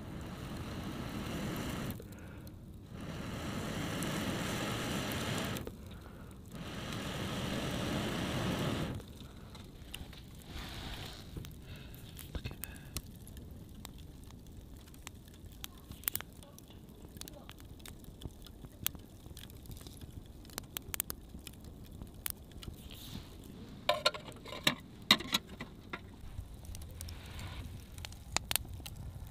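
Wood campfire of split kindling and sticks burning, with scattered crackles and pops and a burst of louder pops late on. In the first nine seconds, three long whooshes of air.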